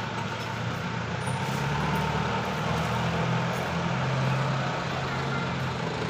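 Road traffic passing close by: a jeepney and then a light box truck with a motorcycle drive past, their engines making a steady low hum. The hum grows louder about a second in and eases near the end.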